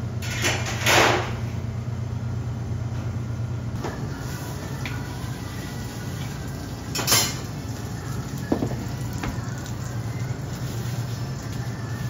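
Steady low hum of bakery kitchen machinery, with two short swishes about a second in, another about seven seconds in, and a few light knocks.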